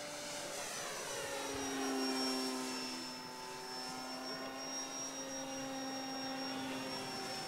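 Savage Bobber 3D-printed RC plane's motor and propeller in flight. The pitch drops over the first couple of seconds, loudest about two seconds in, then settles into a steady tone.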